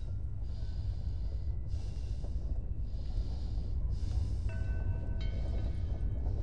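Film soundtrack: a steady low rumble with a soft hiss swelling and fading about once a second, and a faint held tone entering about four and a half seconds in.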